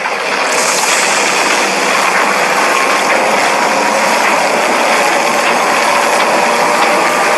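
Loud, steady mechanical noise, like a large machine running, that starts abruptly and holds at an even level, with a faint rising whine near the end.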